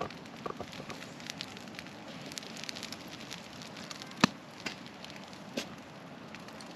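Wood campfire burning in a fire pit, crackling with scattered small pops and one sharp, much louder pop a little past four seconds in.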